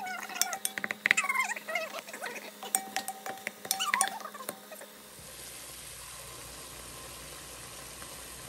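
A wooden spoon stirring browned sausage in an enamelled Dutch oven, clacking and scraping against the pot in quick knocks with some squeaks. About five seconds in this gives way to a steady sizzle of the meat frying.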